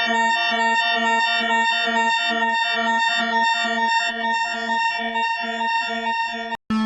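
Boeing cockpit overspeed warning sounding continuously: a rapidly repeating alarm pulsing about three times a second over steady tones. It cuts off abruptly near the end.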